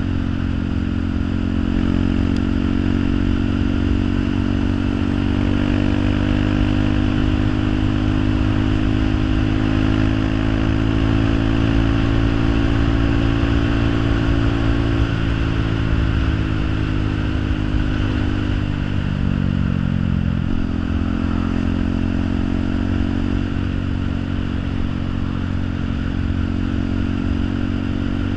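An engine or motor running steadily with a low, pitched hum, its pitch shifting a little about halfway through.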